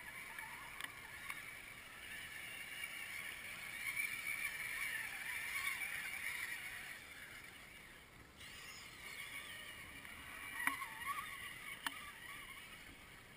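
Radio-controlled scale 4x4 crawler trucks wading through muddy water: water sloshing around their wheels with the faint whine of their electric motors and gears, wavering in pitch, and a few light clicks.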